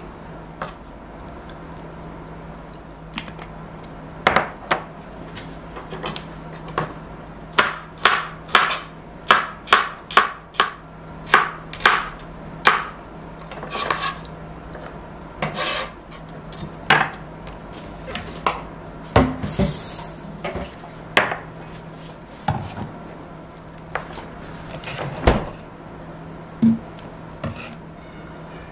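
Chef's knife slicing garlic cloves on a cutting board: a run of sharp knocks on the board, about two a second at their densest, thinning out later, with a brief hiss about two-thirds of the way in. A steady low hum runs underneath.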